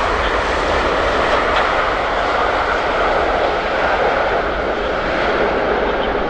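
Jet noise from an Airbus A380's four turbofan engines as the airliner lands, a loud, steady rush.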